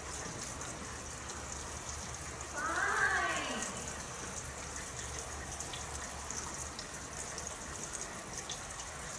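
Steady hiss of background noise, with one drawn-out voice sound about three seconds in that rises and then falls in pitch.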